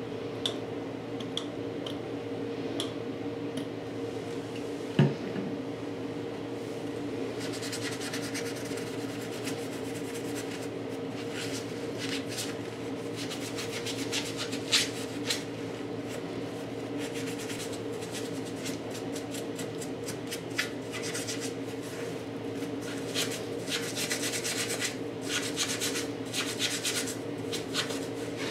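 Magic eraser and soapy hands scrubbing the wet vinyl body of a G3 My Little Pony toy: dense, scratchy rubbing strokes that get going about eight seconds in, over a steady low hum. There is one sharp knock about five seconds in.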